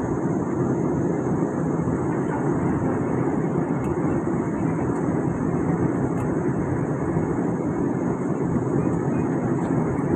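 Steady cabin noise of an airliner descending to land, heard from a window seat: an unbroken rush of engine and airflow noise, heaviest in the low range, with a steady high hiss above it.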